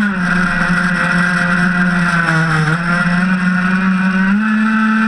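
Gas two-stroke Zenoah 26PUM engine of an RC race boat running at high revs, heard from on board with the hiss of spray and water rushing past the hull. Its pitch sags right at the start and again midway as the boat swings through a turn, then climbs back up about four seconds in.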